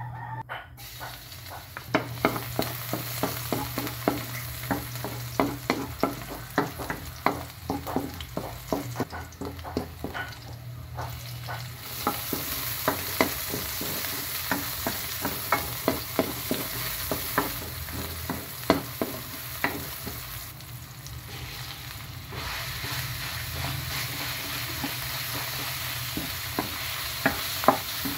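Chopped onion and garlic sizzling in hot oil in a metal wok, with a steady frying hiss. A wooden spatula stirs them, scraping and knocking against the pan in many sharp clicks.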